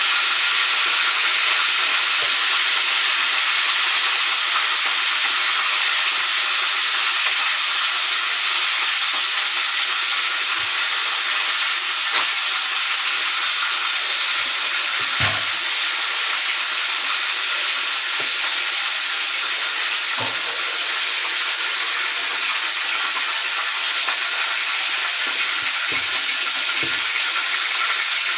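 Fish frying in hot oil in a wok, a steady sizzle throughout, with a couple of brief clicks partway through.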